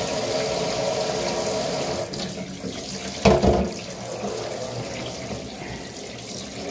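Kitchen faucet spray running water over a block of ice and into a stainless-steel sink, a steady splashing rush, with a short knock a little over three seconds in.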